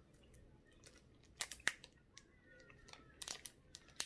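Thin plastic candy tray crackling and clicking as it is handled, a run of sharp crackles starting about a second and a half in.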